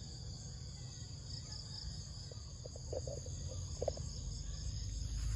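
Steady high-pitched insect chorus, with a low rumble underneath that grows louder near the end and a few faint short sounds in the middle.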